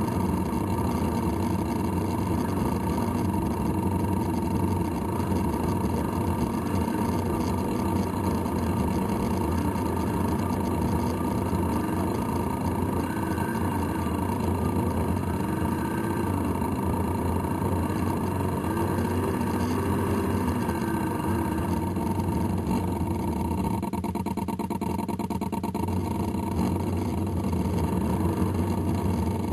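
Small combustion engine of a radio-controlled model boat running steadily at an even pitch, heard close up from on board. A fainter wavering tone comes and goes in the middle.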